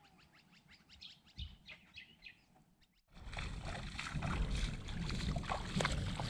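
A few faint, high, quick falling bird chirps; then, about three seconds in, the sound cuts to a louder steady rush of wind and rippling shallow water lapping over a sand flat, with small chirps and ticks over it.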